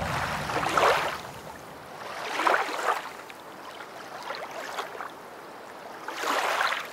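Sea waves washing onto the shore: three swells of rushing water, each rising and falling away, with quieter wash between them.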